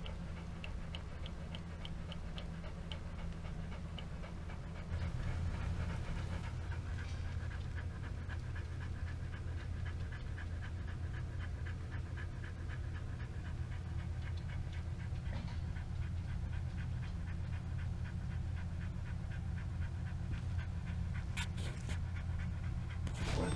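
Siberian husky panting fast and rhythmically, about three or four breaths a second: labour panting while whelping. A steady low hum runs underneath and gets louder about five seconds in.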